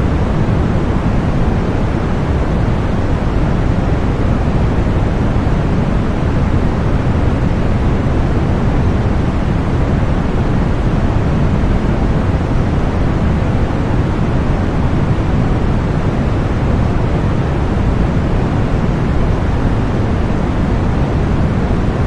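Steady white-noise masking sound for tinnitus relief: an even, unchanging rushing hiss, fuller in the lows than the highs.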